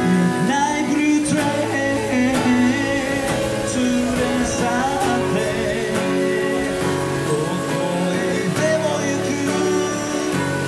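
A man singing a slow pop-rock song, accompanying himself on a strummed acoustic guitar; the voice comes in about half a second in.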